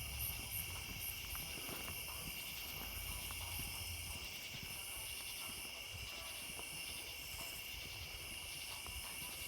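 Crickets and other night insects chirping steadily, a continuous high trill with no fireworks going off.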